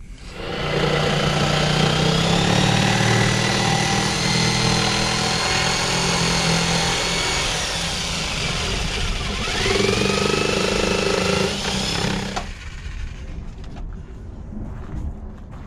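Electric jigsaw cutting plywood, its motor whining steadily. About nine seconds in the pitch dips sharply and climbs back, and the saw stops about twelve seconds in.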